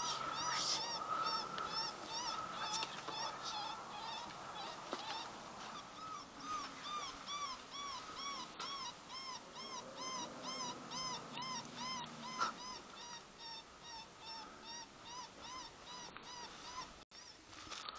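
Geese honking: a long run of repeated rise-and-fall honks, several birds overlapping at first, then an even series of about two to three honks a second.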